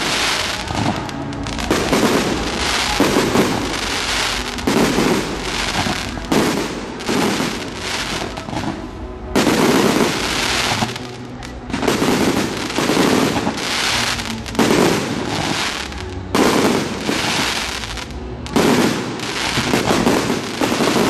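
Fireworks display: aerial shells bursting in rapid succession, about one every second or two, each burst followed by the hissing crackle of its glittering stars.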